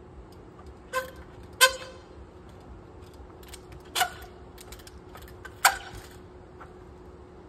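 Trials bike hopping on a boulder: four sharp knocks as the wheels come down on the rock, each with a brief ringing tone, and a few lighter clicks between them.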